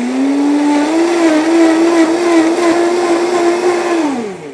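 Countertop blender motor running at high speed, puréeing chunks of pear and apple in liquid. Its pitch climbs at the start and again about a second in, holds steady, then winds down near the end as the motor is switched off.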